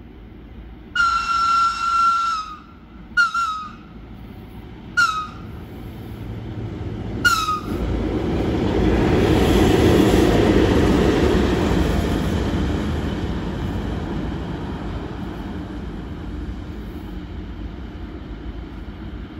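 Electric locomotive sounding its high-pitched whistle, one long blast and then three short ones, each dipping slightly in pitch at its end. It then passes close by, its running noise loudest about ten seconds in and fading as it moves away.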